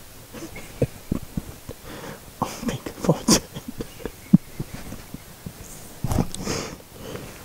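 Irregular soft thumps and rustling close to the microphone, with a louder rustle about six seconds in.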